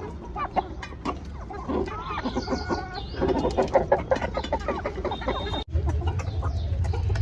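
Chickens clucking and calling in a rapid run of short calls. About five and a half seconds in the sound cuts off abruptly and a steady low rumble starts.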